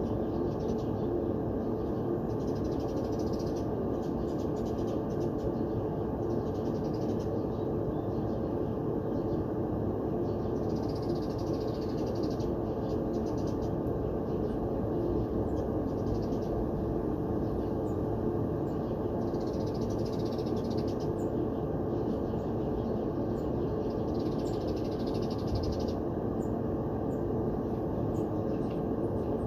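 Clothes dryer running on air only, its blower pushing a steady rush of air out through the exterior dryer vent, with a steady hum under it.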